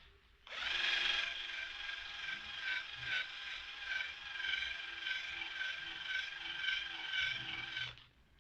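A small electric power tool running steadily with a whirring, geared motor. It starts about half a second in and stops shortly before the end.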